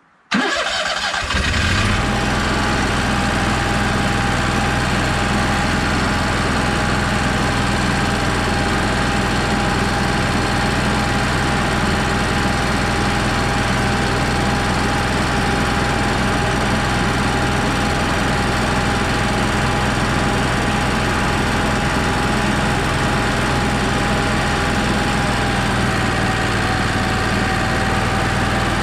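Onan Marquis Gold 5500 RV generator starting up abruptly a fraction of a second in and then running steadily at constant speed with an even hum. It is being run after a fresh oil and filter change, before the oil level is checked again.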